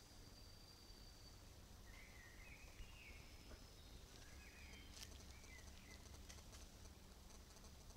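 Faint woodland birdsong: short warbling phrases, with a few soft clicks about five seconds in, over quiet forest ambience.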